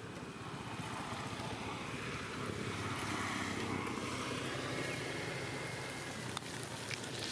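Wind buffeting the microphone outdoors: a steady noise with an irregular low rumble.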